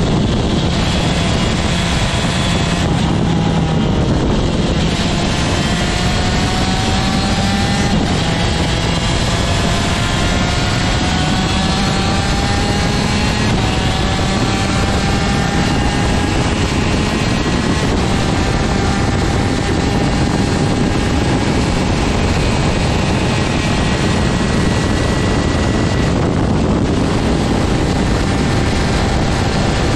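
125cc TM two-stroke superkart engine running hard at speed, its note climbing steadily and dropping back several times.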